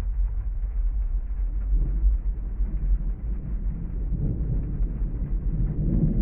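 Rain ambience with a steady deep rumble, and a roll of distant thunder swelling up about four seconds in.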